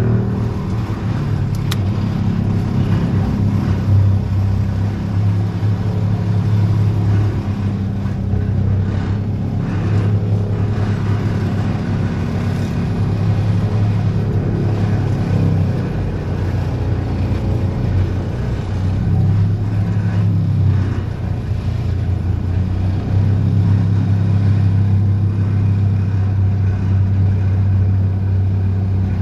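Excavator carrying a DPD350T vibro hammer, running steadily under load with a strong, continuous low hum that shifts a little in level a few times.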